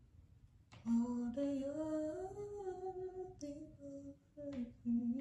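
A woman humming a slow tune without words, held notes that step up and down in pitch, starting about a second in.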